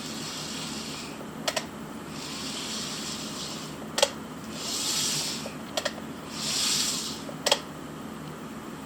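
Small plastic parts handled close up while an N-gauge model train set is unpacked: about four soft swishing rubs, each about a second long, and four sharp plastic clicks, two of them doubled.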